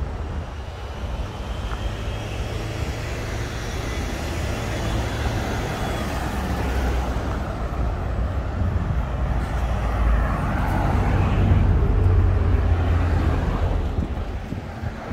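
Road traffic passing at a busy junction: a steady low rumble of engines and tyres that swells as vehicles go by close, loudest about two-thirds of the way through.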